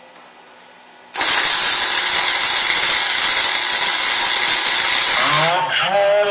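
A welding arc running in one steady, loud hiss, starting suddenly about a second in and easing off near the end, as the handlebar mount is welded to the trike frame.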